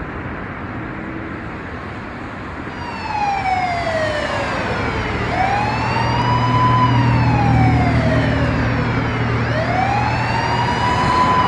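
Emergency vehicle siren in a slow wail, starting about three seconds in: the pitch falls slowly, then sweeps back up, about every four seconds. It sounds over steady road traffic noise, with a low engine hum underneath.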